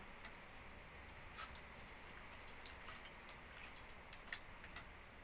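Faint, scattered clicks and crinkles of aluminium foil as hands tear meat off a foil-wrapped roast chicken, the sharpest click about four seconds in, over a quiet background hiss.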